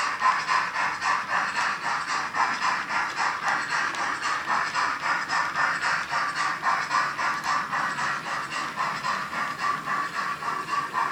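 Sound decoder of a Roco BR 01 H0 model steam locomotive playing a steady steam chuff through its small loudspeaker, about three hissing beats a second, as the engine runs along.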